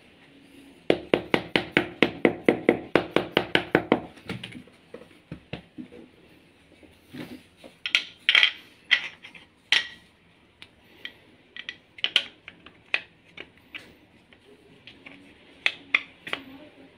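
A hammer tapping rapidly on metal engine parts, about seven quick ringing strikes a second for some three seconds starting about a second in. Scattered clinks of metal parts being handled follow.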